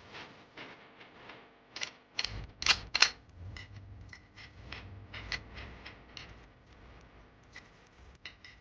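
Irregular mechanical clicks and clatter from handling an Umarex Glock 17 blowback BB air pistol, with two louder clacks close together about three seconds in.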